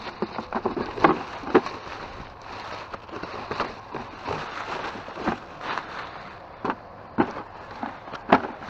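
Rummaging by hand through trash bags of blankets and clothes: plastic and fabric rustling, with irregular sharp crackles.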